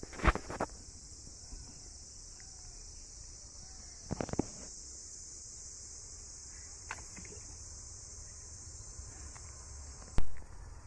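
Steady high-pitched drone of insects such as crickets, with a few scuffing footsteps on a dirt path and a single sharp knock near the end, the loudest sound.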